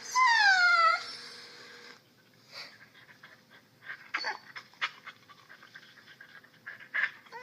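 A recorded dog whine played through an iPad speaker: one loud, drawn-out cry falling in pitch, which stops abruptly about two seconds in. Soft scattered clicks and short snuffling noises follow.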